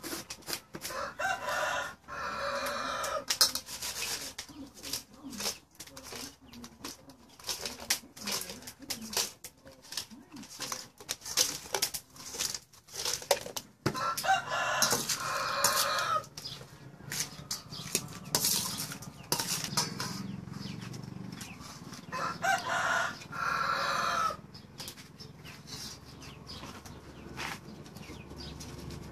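A rooster crows three times, each crow about two seconds long: near the start, about halfway, and about three quarters of the way through. Between and under the crows, a metal spoon clicks and scrapes against a stainless steel bowl as food is tossed in it.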